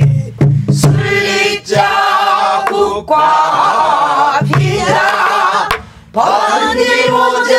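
Voices singing a Korean Namdo folk song (minyo) in the full-throated southern style, with strokes on a buk barrel drum beaten with a stick keeping the rhythm. The singing breaks off briefly twice, about 1.7 seconds in and near 6 seconds.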